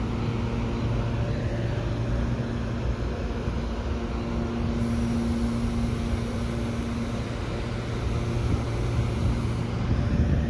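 CPTM Series 8500 electric multiple unit standing still, its onboard equipment humming steadily. A faint high whine comes in about five seconds in and stops near the end.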